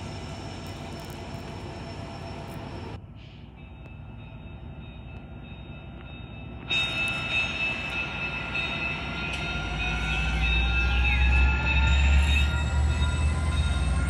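An approaching commuter train hauled by an F59PHI diesel locomotive, its low engine rumble growing louder through the second half. About halfway in, several steady high tones come in suddenly and hold. Near the end, thin tones rise slowly in pitch.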